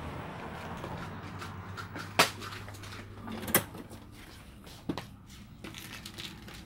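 Sharp knocks and clacks of hard plastic toy eggs being handled and dropped onto a tile floor: the loudest about two seconds in, another about a second and a half later, and a softer one near five seconds.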